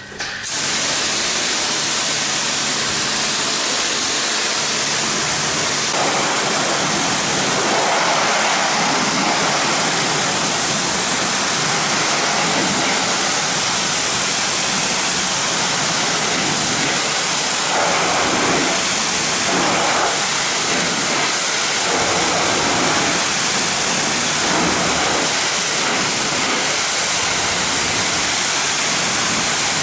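Pressure washer spray: a loud, steady hiss of a high-pressure water jet that switches on suddenly just after the start, its tone shifting and swelling unevenly from about six seconds in.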